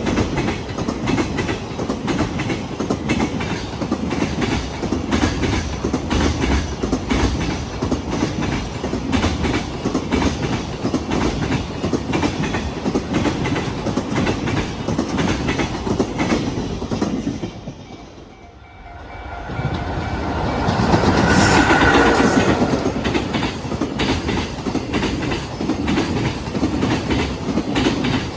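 Freight train wagons rolling past at close range: a continuous, loud clatter of wheels striking the rail joints, the clickety-clack of jointed track. About two-thirds of the way through the noise falls away briefly and then builds up again.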